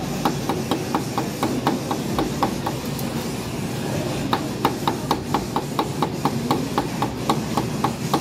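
A cleaver chopping grilled mushrooms on a wooden cutting board: a fast run of sharp knocks, about three to four a second, with a short pause about three seconds in, over a steady hiss.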